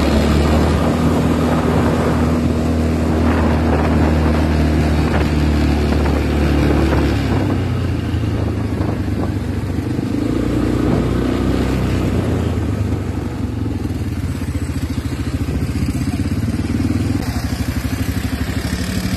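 Small motorcycle engine running steadily while riding along, a little quieter in the middle.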